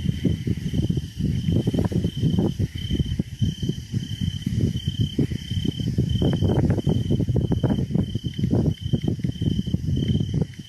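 A cricket chirping in a steady pulse, about two chirps a second, over loud, irregular low rumbling and crackling.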